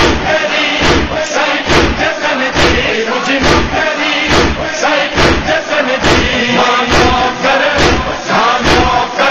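Shia devotional chant, a group of voices chanting in rhythm over a heavy beat that falls a little more than once a second.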